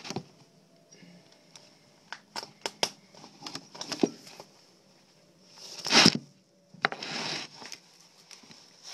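A knife working through a pheasant's wing joint: scattered small cracks and crackles, then a louder tearing rasp about six seconds in and a softer rustle of feathers and skin after it.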